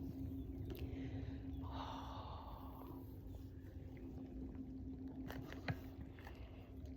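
A woman's soft, breathy "oh" about two seconds in, amid quiet breathing and a few faint clicks, over a steady low hum.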